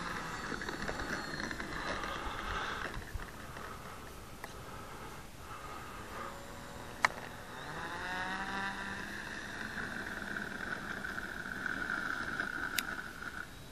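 Electric motor and propeller of an RC Cessna 182 model plane whining. The pitch rises about eight seconds in as the throttle opens for take-off, then holds a steady high whine. Two sharp clicks come through over it.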